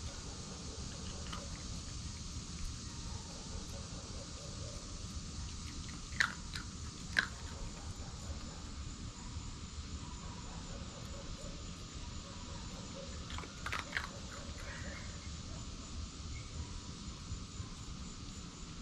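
Red fox eating dry food from a bowl: a few short, sharp crunches, twice about a second apart and again briefly a few seconds later, over a steady drone of insects.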